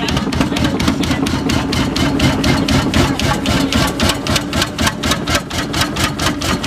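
An old engine running steadily, with a sharp, even beat of about five strokes a second over a low hum.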